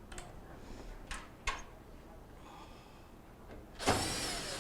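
A few sharp clicks and knocks as the dryer's front panel parts are handled. Near the end comes a brief whir of about a second as a screw is driven in.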